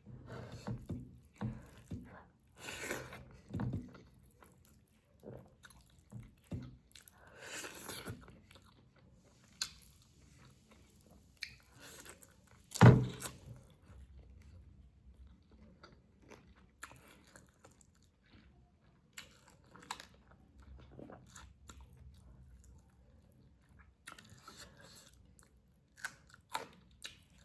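Close-up mukbang eating sounds: a person chewing and biting mouthfuls of spicy chicken gravy rice in irregular bursts. About halfway through comes one sharp knock, the loudest sound.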